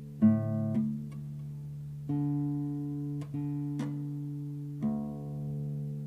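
Nylon-string classical guitar lying flat, its strings struck for three separate notes that each ring on, with a few light taps on the strings in between, over a steady low hum.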